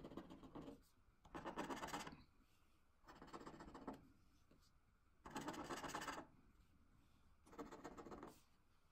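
Scratch card's latex coating being scraped off with a small yellow plastic disc, in five short scratching strokes of under a second each, with pauses between them.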